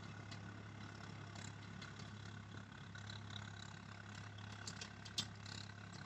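Swaraj 855 tractor's three-cylinder diesel engine running steadily under load as it pulls a cultivator. It is faint and distant, with a few faint clicks.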